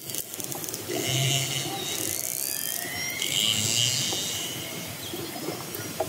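Orcas (killer whales) calling underwater, heard through a hydrophone: several squealing calls with short pitch glides, mixed with trains of fine clicks over a steady hiss of water noise.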